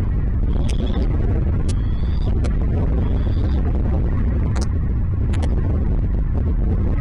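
Short, high chirps from a bird at the nest, several in the first few seconds, with a few sharp ticks, over a steady loud low rumble.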